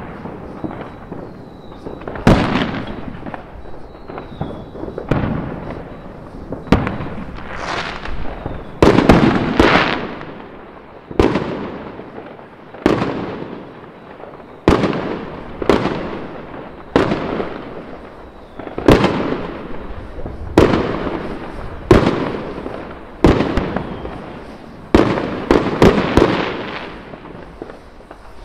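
Fireworks going off over a town: a steady string of sharp bangs about every one to two seconds, each trailing off in a rumbling echo.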